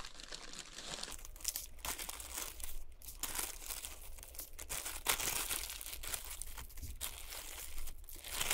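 Small plastic zipper bag crinkling in irregular rustles as hands dig into it and pull out catfish nuggets coated in fish fry breading.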